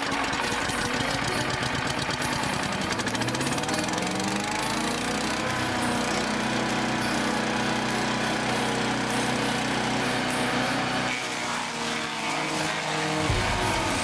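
The 224cc single-cylinder gas engine of a BILT HARD wood chipper shredder running just after a pull start. Its pitch rises about four seconds in as it speeds up, then holds steady, and the note shifts again near the end.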